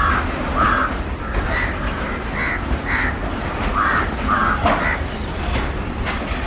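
Birds calling: a string of short, harsh calls, about two a second, over a steady low rumble.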